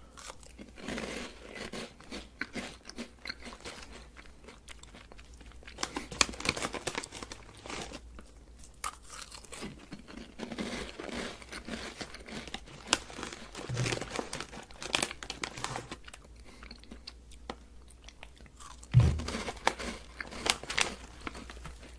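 Close-miked chewing of a Japanese candy: irregular crunching and wet mouth clicks. Near the end there is a single low thud, the loudest sound.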